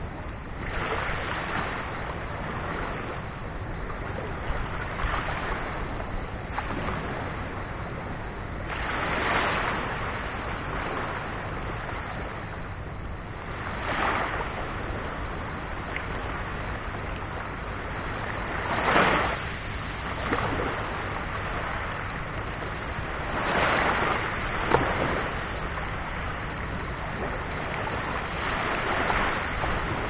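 Small waves of a calm sea breaking and washing up a shell-and-sand beach, one swell of surf noise every four to five seconds, over a steady low rumble.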